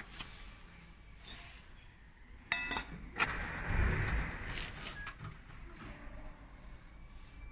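Metal parts and tools clinking and knocking as a laser engraving machine is worked on, with a short metallic ring about two and a half seconds in.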